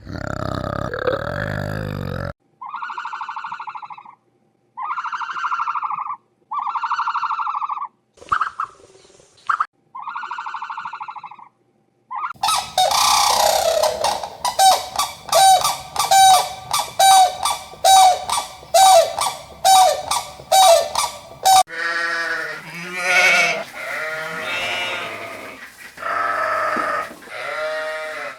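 Animal calls from several animals in turn. First comes a run of about five separate pitched calls, then a fast string of short repeated calls lasting about nine seconds, then another series of pitched calls.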